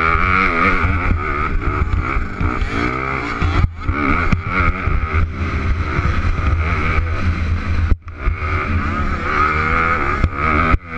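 Motocross bike engine revving up and down through the gears at racing speed, with wind rushing over the microphone. The sound dips sharply for an instant twice.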